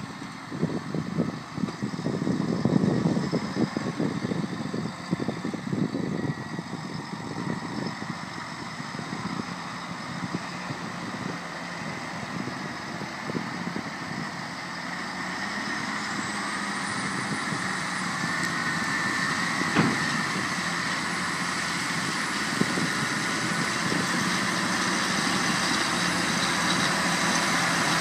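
Diesel engines of Massey Ferguson tractors pulling reversible ploughs, running steadily, growing gradually louder through the second half as one tractor comes closer. Gusts of wind rumble on the microphone in the first several seconds.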